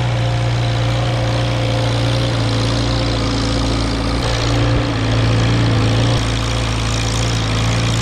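Farmall Super A tractor's four-cylinder gasoline engine running steadily as the tractor pushes snow with its blade.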